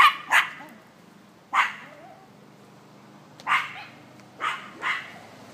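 A dog barking: about six short barks, two in quick succession at the start, one a second and a half in, then three more in the second half.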